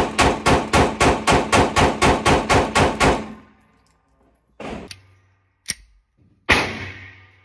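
A firearm fired in a rapid string of shots, about four a second, stopping about three seconds in. After a short pause come three more single shots.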